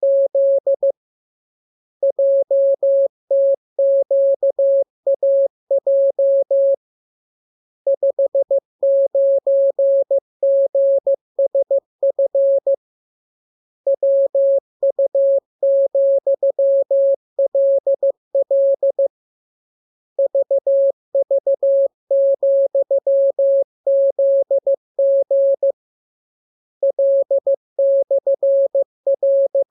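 Morse code practice tone: a single steady beep keyed on and off in dots and dashes, sending runs of code characters separated by pauses of about a second.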